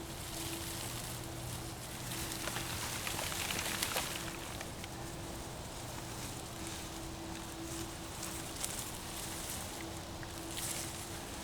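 Rustling with scattered small crackles as a freshly dug ginger plant, its roots and soil, is handled, busiest a few seconds in, over a faint steady hum.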